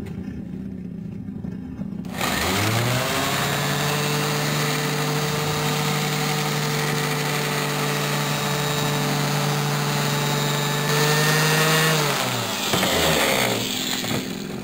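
Electric random orbital sander starting up with a quick rising whine, running steadily for about ten seconds while buffing polishing paste on a blued chrome exhaust pipe, then spinning down.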